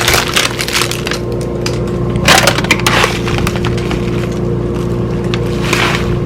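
Plastic produce bags and food packaging crinkling and rustling as food is handled out of a fridge drawer, in a few short bursts, over a steady hum.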